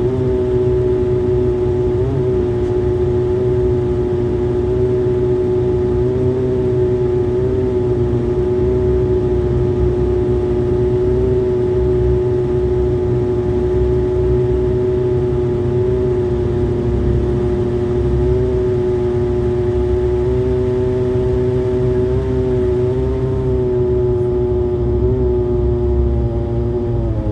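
An airliner's engines running steadily while it taxis, heard from inside the passenger cabin. There is a loud, even hum with a low rumble beneath it, and the pitch wavers slightly and dips near the end.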